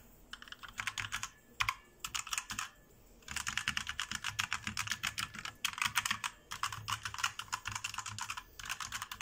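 Fast typing on a Gamepower Katana mechanical keyboard with red switches: a quick run of keystroke clacks that stops briefly about three seconds in, then goes on steadily. The red switches make no click on each press, only the plain clack of the keys.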